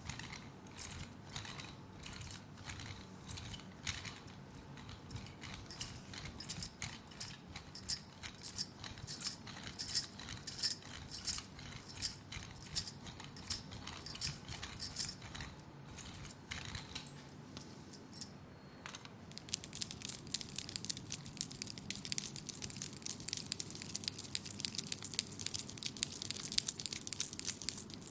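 Hands working hot oil into a leg in rhythmic massage strokes, about three every two seconds, each with a light metallic jingle. After a pause of about three seconds near the middle, they switch to a fast continuous rubbing with a fine steady jingle.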